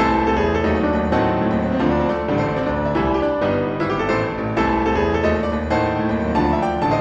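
Piano-led music: quick successive notes over a steady low bass.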